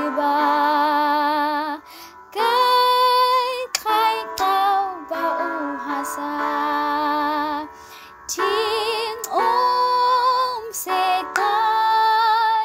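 A young woman singing long, held notes with a wide vibrato, phrase after phrase, with short breaths about two seconds and eight seconds in.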